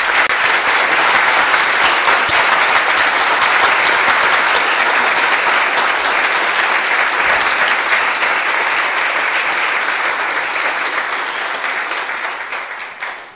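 Audience applauding: steady, dense clapping that fades out near the end.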